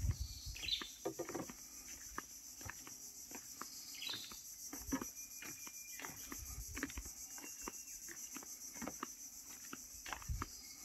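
Steady high-pitched insect chorus, with scattered knocks and clicks throughout and two short chirps, about a second in and about four seconds in.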